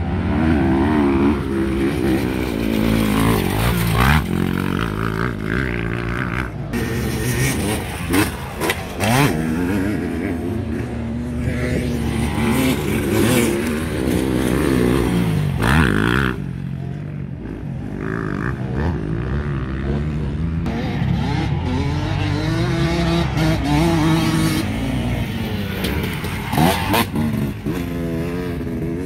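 Motocross dirt bike engines revving up and easing off again and again through gear changes as they ride the track. The sound changes abruptly several times.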